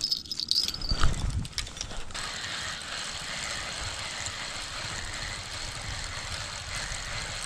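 Fishing reel being cranked to wind in line on a bottom rod, a steady gear whir after a couple of seconds of knocks and thumps as the rod is picked up and handled.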